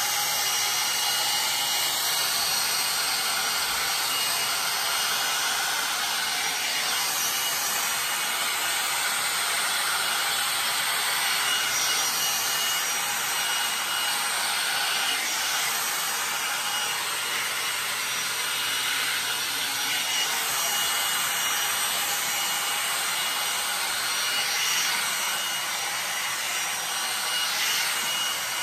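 IKOTE hot-air dryer brush running at a steady level, a constant rush of blown air with a faint high whine from its motor.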